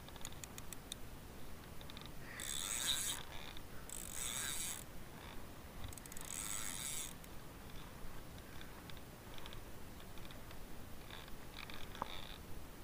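Small overhead jigging reel being cranked by hand in three short turns of under a second each, the gears and line making a hissing, ratcheting sound, with a few light ticks before and after.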